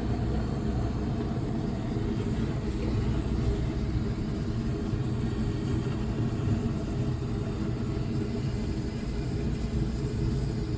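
Wood fire burning in a homemade firewood stove: a steady low rumble as the draft draws the flames and smoke out through the flue.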